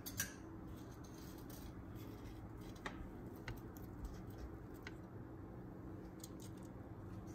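Metal kitchen tongs clicking faintly a few times, scattered single ticks over a low steady hum.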